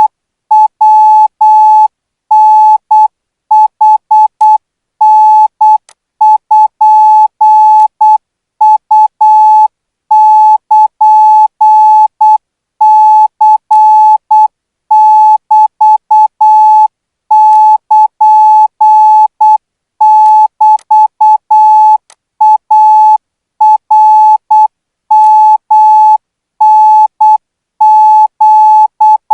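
Morse code practice signal: a single steady beep keyed on and off in short dits and longer dahs at 12 words per minute, sending Thai Morse characters.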